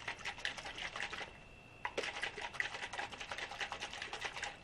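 Columbia straw-top kids' plastic water bottle, half full, shaken hard upside down: quick rattling slosh of water and clatter of the closed lid, in a bout of about a second, then after a short pause a longer bout of about two and a half seconds.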